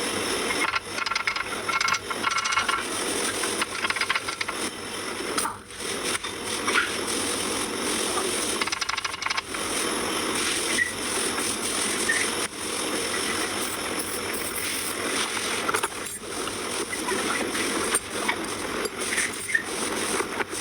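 Irregular metallic clattering and rattling, with many small clinks and knocks, from hands-on work on a car's brakes.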